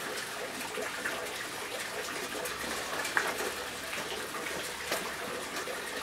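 Steady rush of running water in the background, with a few faint clicks.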